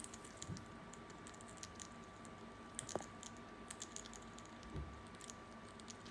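A parrot crunching food in its beak: faint, irregular small clicks and cracks, over a steady faint hum.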